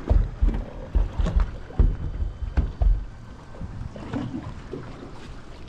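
Small boat drifting on open sea: water slapping against the hull in irregular low thumps and splashes, several a second, easing off after about three seconds.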